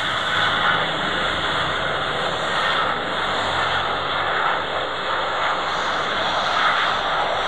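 Jet engines of a VietJet Air twin-jet airliner at takeoff power during the takeoff roll and rotation: a steady noise with no clear pitch.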